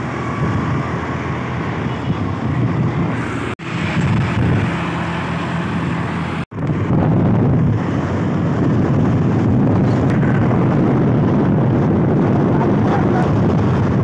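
Motorbike riding at speed on a highway: the engine runs steadily while wind rushes over the microphone, the wind growing heavier in the second half. The sound briefly drops out twice.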